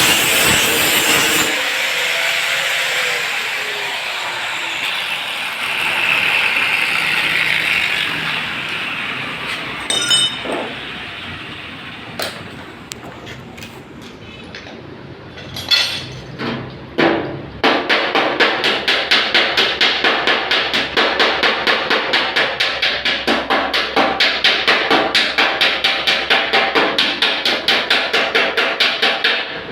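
Hammer beating out dents in a car's sheet-metal body panel: a fast, even run of metal blows, about three to four a second, starting a little past halfway, after a stretch of steady workshop noise with a few scattered knocks.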